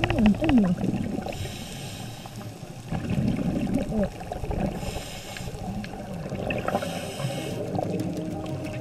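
Underwater sound of a scuba diver's regulator: breaths and bubbles hiss three times, about a second each, over a gurgling wash of water.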